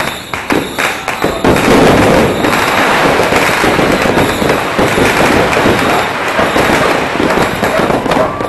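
New Year's firecrackers and fireworks going off in a loud, dense barrage of overlapping pops and crackles. Separate bangs at first give way about two seconds in to an unbroken crackle.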